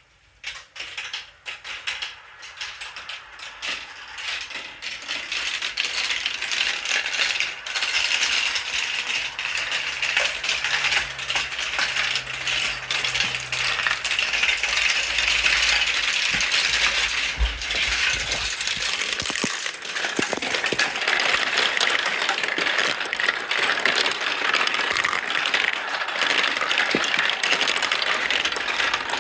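Marbles rolling and clattering through a marble run, heard from inside the run: separate clicks at first, building within about six seconds into a dense, continuous rattling clatter that stays loud.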